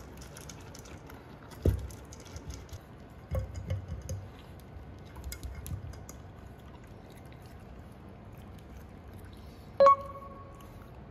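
Shiba Inu puppy eating dry kibble from a slow-feeder bowl: scattered crunches, clicks and knocks of muzzle and kibble against the bowl, busiest in the first half. Near the end comes a short ringing tone, the loudest sound.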